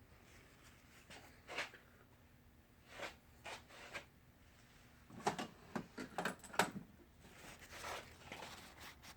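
Short, faint scraping and rubbing strokes as the inside of a KTM 450 Magura clutch master cylinder is cleaned of dirt, with a quicker run of strokes about halfway through.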